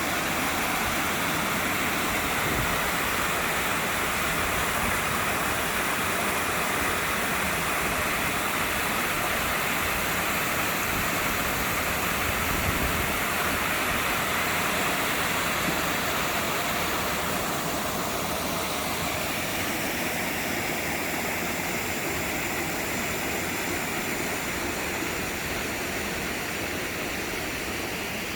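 Waterfall rushing: a steady, even wash of falling water that gets a little quieter from about halfway through.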